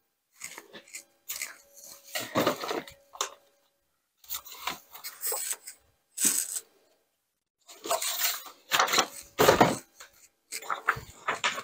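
Anti-static powder pouch rubbed in repeated strokes over glossy copper cardstock, making irregular papery rustling and scuffing, done to take the static off before heat embossing.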